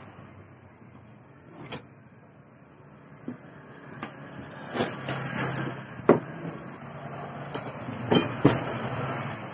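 Square steel bars and a round steel rod being handled and set down on a wooden work surface: scattered metal knocks and clinks, the loudest about six seconds in and two more close together near the end, over a low steady hum.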